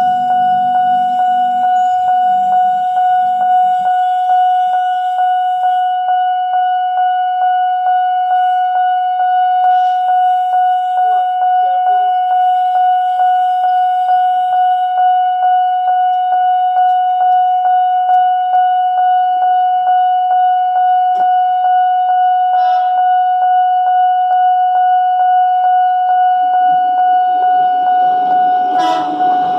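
Railway level-crossing warning siren sounding one steady high electronic tone that pulses rapidly. Near the end the rumble of an approaching train rises beneath it.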